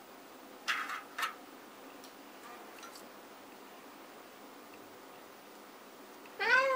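A domestic cat meows once near the end, a short call rising then falling in pitch. Two brief soft noises come about a second in.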